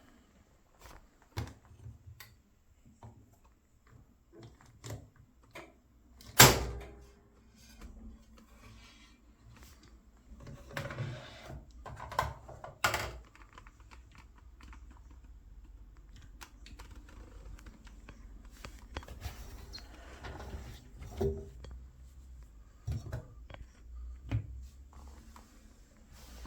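Irregular knocks and clicks, with one loud thump about six seconds in and another sharp knock about thirteen seconds in, over a faint low hum.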